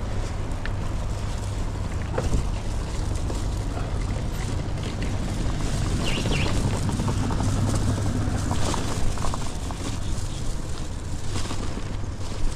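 Steady wind rumble on the microphone and road noise while riding a bicycle along a city street, with a few light clicks and rattles.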